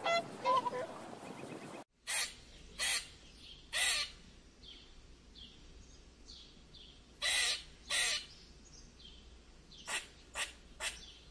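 Mute swans calling over lapping water for about two seconds. Then a Eurasian red squirrel gives short harsh calls: three spaced ones, a pair, and near the end three in quick succession.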